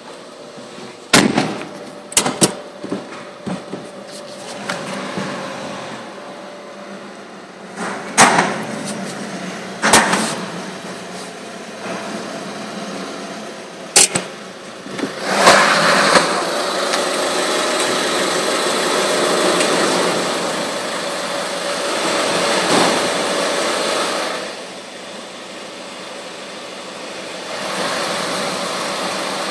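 Steady mechanical running noise in a car lift, louder through the second half, with several sharp knocks and clicks in the first half.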